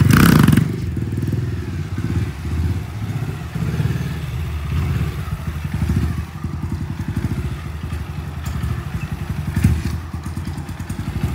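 Motorcycle engine being ridden in a wheelie. A loud rev comes in the first half second, then it runs at lower revs with the throttle rising and falling as the wheelie is held.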